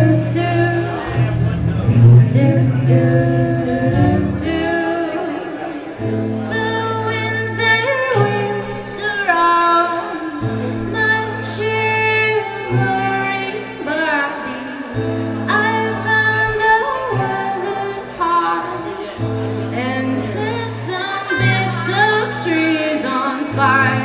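A live band playing a song with sung vocals over a steady bass part. The low accompaniment drops out briefly about five seconds in, then comes back.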